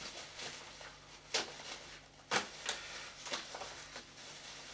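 A knife cutting and scraping through duct tape and plastic wrapping on a parcel: a handful of short, sharp scratchy strokes over faint rustling of the plastic.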